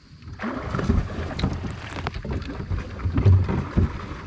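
Muffled rumbling and rustling of material rubbing against a covered camera microphone, with scattered knocks.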